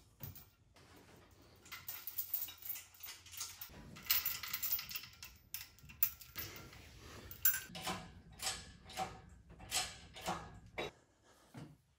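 Steel lifting chain of an engine crane jangling and clinking against metal as it is hooked onto lifting bolts on the engine, with a run of separate metal knocks near the end.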